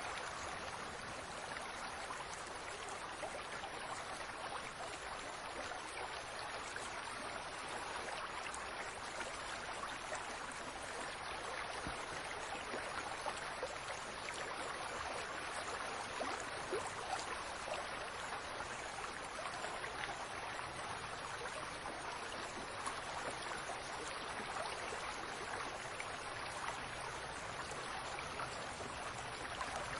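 Fountain water splashing and trickling steadily, with many small droplet splashes scattered through it.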